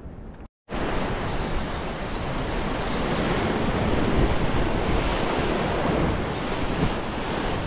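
Sea surf surging and washing over coastal rocks in a dense, steady rush. It starts suddenly just under a second in, after a brief moment of dead silence.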